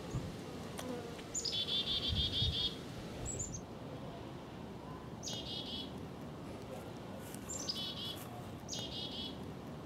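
A small songbird singing the same short phrase four times: a few high notes dropping into a rapid trill. There is a brief low rumble about two seconds in.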